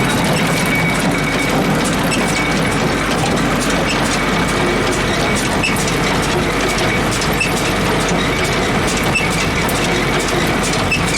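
John Deere hay baler running, a steady loud mechanical clatter of its gears and moving parts, with a short sharp click repeating about every two seconds.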